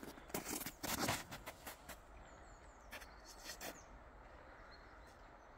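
A few short crunching, rustling sounds in the first second or so as a disc golfer steps through the snow and throws a drive, then quiet outdoor air with a few faint, high bird chirps.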